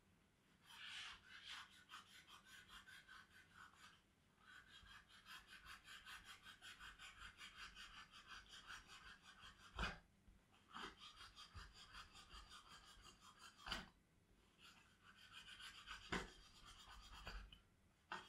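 Knife blade scraping back and forth across the end of a leather strap to thin it down, a faint rapid rasping of about four strokes a second in several runs with short pauses. A few sharp knocks break in, the strongest about ten seconds in.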